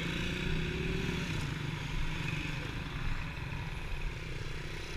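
Motorcycle and street traffic engine noise: a steady low rumble, with a faint engine note passing in the first second.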